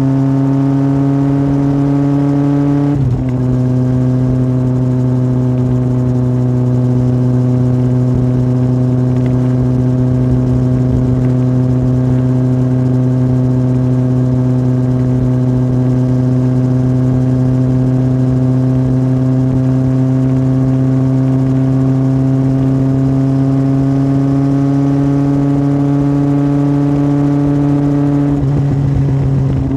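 Yamaha Fazer 1000's inline-four running through an aftermarket MIVV exhaust under way. The note drops once about three seconds in, as at an upshift, then climbs slowly and steadily. It breaks briefly again near the end.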